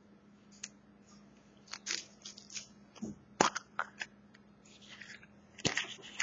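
Hands breaking open a chocolate surprise egg and handling its crinkly foil wrapper: irregular crackles and snaps, loudest a little past halfway and again near the end.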